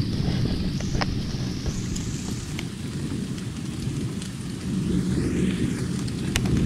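Steady rain from a thunderstorm, with a continuous low rumble of thunder and scattered sharp drips close by. About five seconds in, a hiss rises and falls.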